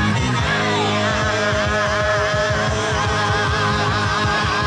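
Hard rock band playing live and loud: a fast, even pounding beat from drums and bass under sustained, wavering high lead notes.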